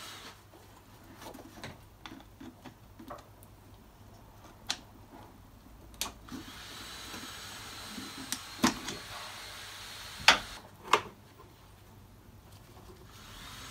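Scattered clicks and knocks of a screwdriver and metal engine parts being handled while fittings at the intake manifold are undone, with a few sharper knocks, the loudest about ten seconds in.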